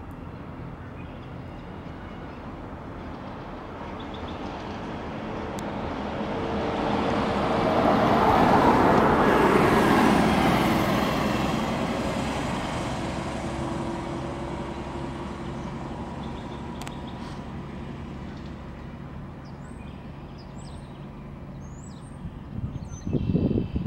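An SUV drives past on the road, its tyre and engine noise swelling to a peak about nine seconds in and then fading away, over a steady low hum. Faint bird chirps come in near the end.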